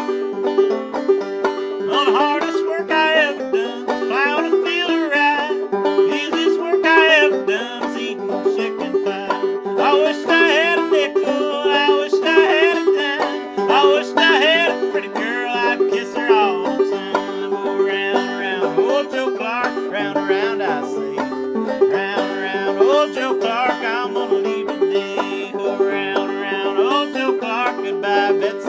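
Five-string banjo played clawhammer (frailing) style in open G tuning, gDGBD: a steady, rhythmic stream of struck and brushed notes over ringing drone strings, playing an old-time fiddle tune.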